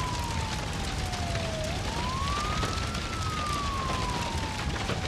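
A siren wailing: a single clean tone falls slowly, sweeps quickly back up about a third of the way through, then falls slowly again. Under it is a steady rushing noise.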